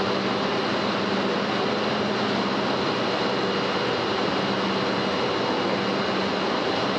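Steady heavy-industrial machinery noise in a steel forging plant: an even mechanical rush with a constant low hum and a couple of faint high steady whines, with no separate blows or pauses.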